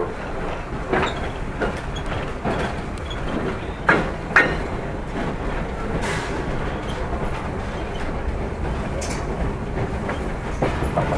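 Slow-moving train's wheels running over the track: a steady low rumble with irregular clicks and clacks from the rail joints, two sharper knocks about four seconds in.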